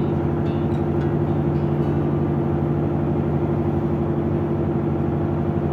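Motorboat engine running steadily under way, a low even drone with no change in speed.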